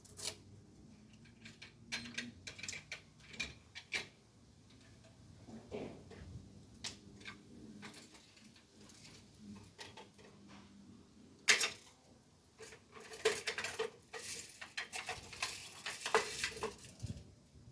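Irregular clicks and clattering of an airsoft MG42 replica being handled, with plastic and metal parts knocking, in clusters about eleven seconds in and again toward the end.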